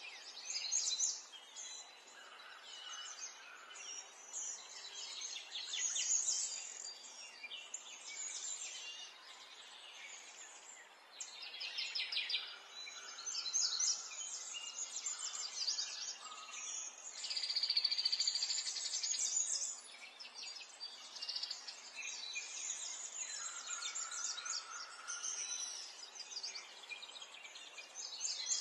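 Small birds chirping and singing, with quick high trills and twittering that come and go throughout.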